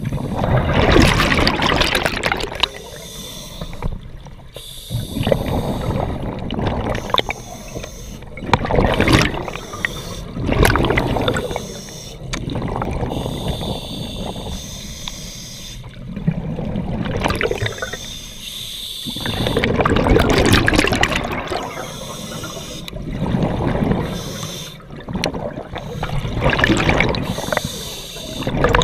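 Scuba diver breathing underwater through a regulator: exhaled air bubbling out in loud bursts every two to four seconds, with quieter gaps for the inhalations between.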